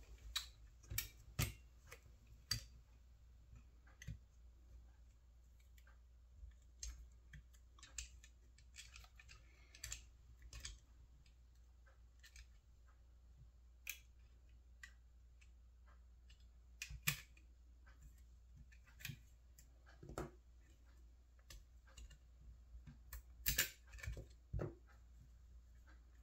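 Irregular light clicks and taps from small metal and plastic parts as a copier fuser pad assembly is handled and its brass strips are taken off, over a faint low hum.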